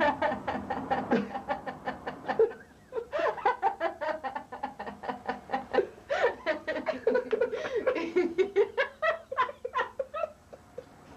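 A child laughing hard in quick, repeated bursts, with a short break about two and a half seconds in.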